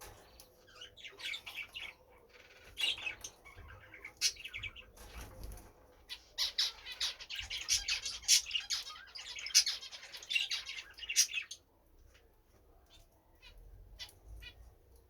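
European goldfinch singing a fast, twittering chatter of high notes, which stops about eleven seconds in, leaving only a few faint chirps.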